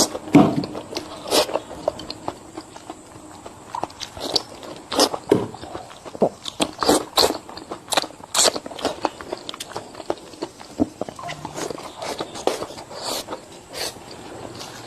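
Close-up eating sounds: a person biting and chewing food, with irregular crisp crunches and wet mouth clicks.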